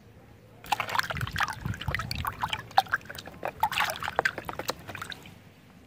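Water splashing and sloshing in a plastic bucket as a mud-covered plastic dinosaur toy is swished and scrubbed by hand. It starts about half a second in, goes on in quick, irregular splashes, and dies away near the end.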